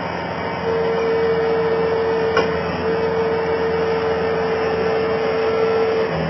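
Skid steer loader's engine running steadily, with a steady whine joining about a second in that breaks off briefly twice, and a single click midway.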